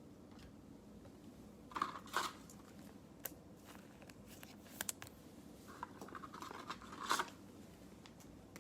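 Trading cards and their packaging being handled: short scrapes and crinkles in two bursts about two seconds in, a few light clicks, then a longer stretch of crinkling and sliding near the end.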